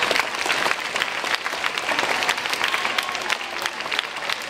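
Middle-school audience applauding: a dense, steady clapping of many hands.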